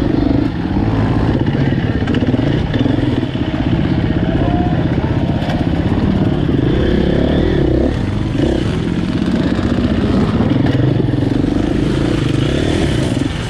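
KTM EXC-F 250 dirt bike's single-cylinder four-stroke engine running close and loud, its revs rising and falling repeatedly as the bike works over rough ground.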